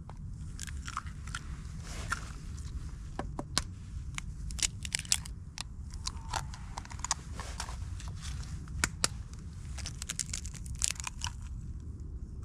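Hen's eggs cracked and their shells pulled apart by hand over a plastic bowl: scattered small crackles and clicks of eggshell and dry leaves, over a low steady rumble.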